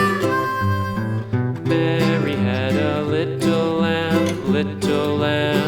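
Background music: an upbeat country-style tune on strummed acoustic guitar with a steady beat.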